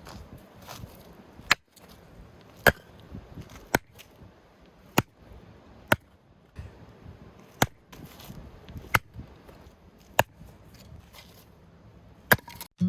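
Firewood being chopped or split with a hatchet: about nine sharp blows, roughly one every second, with a short pause midway.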